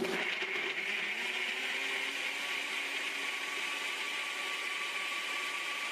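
NutriBullet RX 1700-watt blender running steadily, its extractor blade whirring through frozen pineapple and mango chunks in coconut water. The motor starts right at the beginning, as soon as the cup drops onto the base, at the start of its automatic one-minute cycle.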